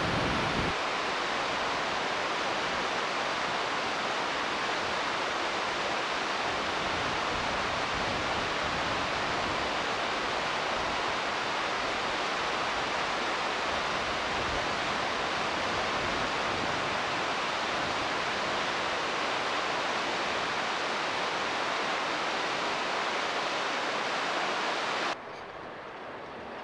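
Steady rush of a shallow, rocky river, a continuous even wash of water. It cuts off abruptly about a second and a half before the end, leaving a much quieter outdoor background.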